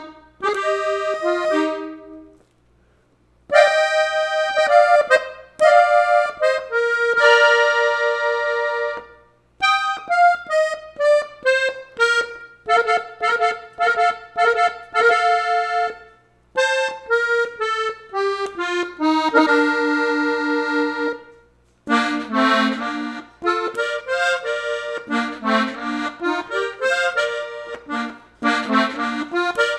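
Diatonic button accordion tuned in F playing a solo norteño melody, note by note, with a short pause about three seconds in. From about two-thirds of the way through the playing turns faster and fuller, with lower notes under the tune.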